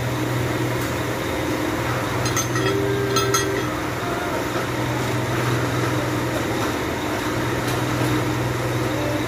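Steady low background hum, with a short cluster of light clicks and clinks about two to three and a half seconds in, from a new gearbox synchronizer ring being unwrapped from its plastic packaging and set down among the gearbox parts.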